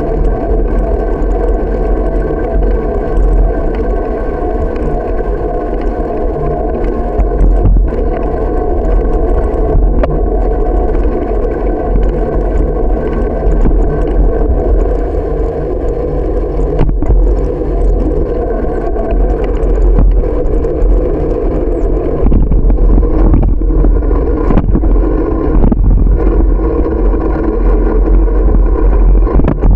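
Steady wind and road rumble from riding a bicycle, picked up by a camera mounted on the bike, with a constant drone running underneath.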